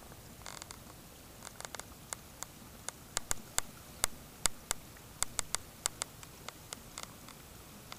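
Water dripping and trickling from a pond's drystacked rock waterfall into the pond: irregular sharp plinks, thickest in the middle, over a faint steady hiss.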